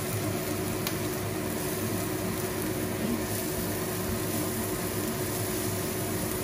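Diced French beans and carrot sizzling steadily in a non-stick frying pan while a spatula stirs them, with a faint click about a second in and a steady hum underneath.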